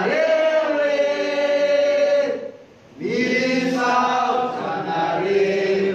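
A group of men and women singing together in chorus: two long held phrases with a short breath between them.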